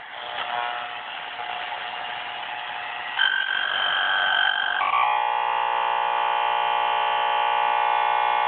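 AM radio tuned between stations at full volume, hissing static, with a brief two-tone whistle a little after three seconds in. About five seconds in, a louder, harsh, steady buzz takes over: interference from the 60-inch plasma TV powering up, picked up by the radio.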